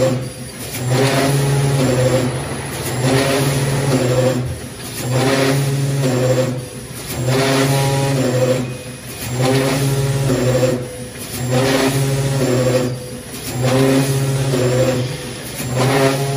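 Automatic rotary cup-filling machine running with a steady mechanical hum. The hum breaks off briefly about every two seconds in a regular working cycle.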